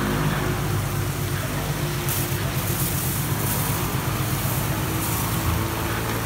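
Kärcher CBC rollover car wash running its brush wash: the brush motors hum steadily while the foam brushes turn against the car and water spray hisses over it.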